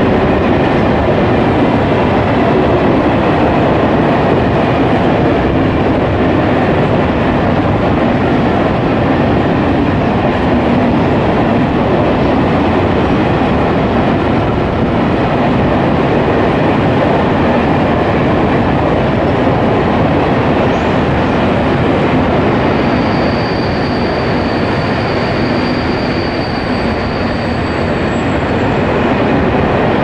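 Freight train of Eas-z open wagons rolling past at speed: a loud, steady rumble and clatter of steel wheels on the rails. A faint high squeal joins in for a few seconds near the end.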